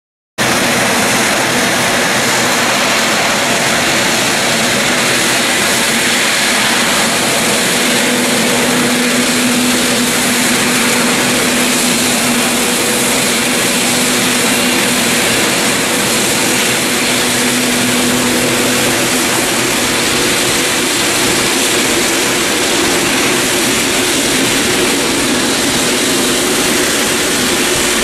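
Boeing 777 jet engines running at low taxi power: a steady, even rush with a faint low hum that grows stronger in the middle.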